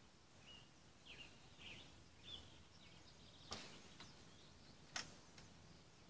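Faint chirps of small birds in the trees, a few short calls in the first half, over a quiet outdoor hiss. Two sharp clicks come in the second half, the louder one near the end.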